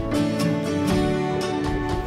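Music with guitar: sustained notes changing every half second or so over regular strummed or struck beats.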